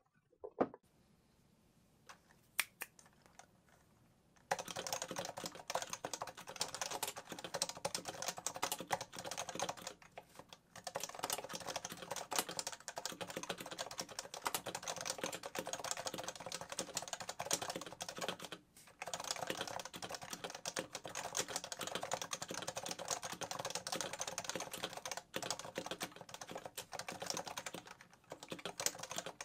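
Typing on a Topre FC660C keyboard in a Heavy-6 aftermarket case: rapid, continuous keystrokes after a few seconds of near silence with a couple of isolated key clicks, broken by two short pauses around a third and two thirds of the way in.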